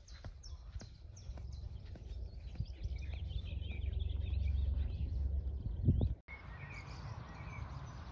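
Small birds chirping over a steady low rumble. The background changes abruptly about six seconds in, as at an edit.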